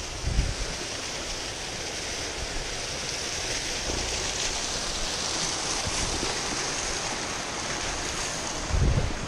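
Mountain waterfall rushing steadily down a rocky gill. Two short low bumps on the microphone, about half a second in and near the end.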